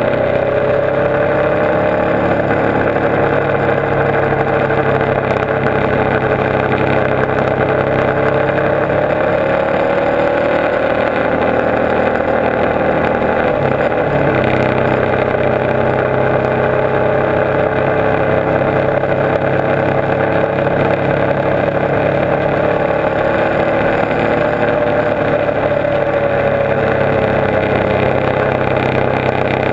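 Motorcycle engine running at cruising speed, heard from on the bike over steady wind and road noise. The engine pitch rises and falls gently, with a brief break about halfway through.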